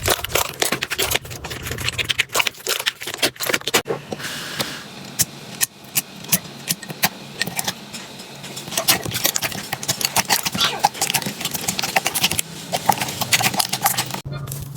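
Slime being squeezed and worked by hand, giving a dense run of small crackling pops and clicks that changes in texture about four seconds in and again near the end.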